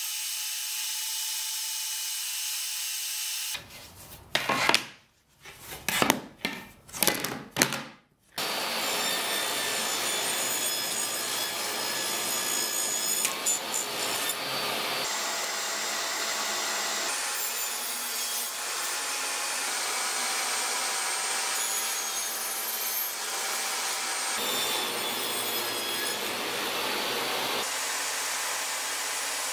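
Table saw running and cutting red oak and walnut boards: a steady motor whine with the blade's cutting noise. It is broken by a loud, uneven stretch of cutting about four to eight seconds in.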